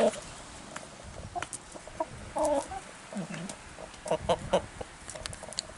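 Hens clucking: short, scattered calls, a cluster about two and a half seconds in and several more later on, with light clicks in between.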